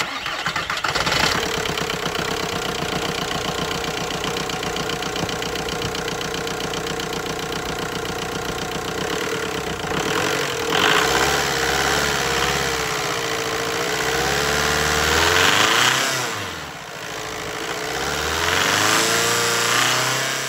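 2001 VW New Beetle TDI's four-cylinder turbodiesel running, its intake freshly cleaned and an oil catch can fitted. It idles steadily for about ten seconds, then is revved up and let back down about three times.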